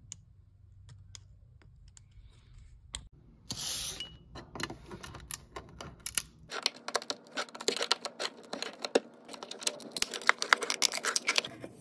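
Metal tool prying around the tin lid of a polyurethane can, a rapid, irregular run of small metal clicks and scrapes that fills the second half. It is preceded by a few sparse faint clicks and a brief scrape.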